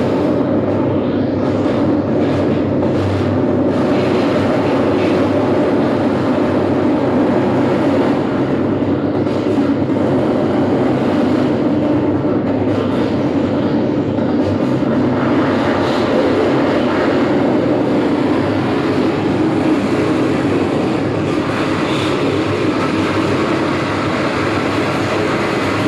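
Live noise music: a dense, unbroken wall of electronic noise over a steady low drone, holding one loud level throughout.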